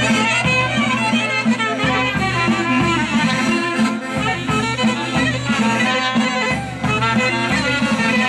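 Greek folk dance music with a steady beat, the violin to the fore.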